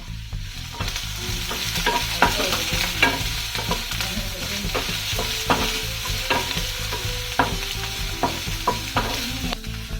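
Chopped onions, shallots, ginger, garlic, green chillies and curry leaves sizzling in hot coconut oil in a kadai, stirred with a cooking utensil that scrapes and clicks against the pan at irregular intervals.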